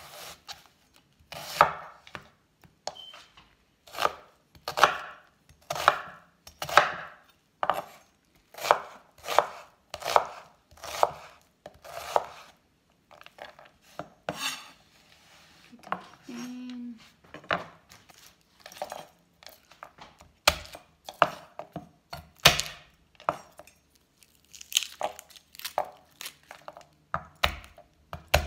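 Chef's knife chopping onion on a wooden cutting board: a run of separate sharp knocks of the blade hitting the wood, about one or two a second, with a lull about halfway through.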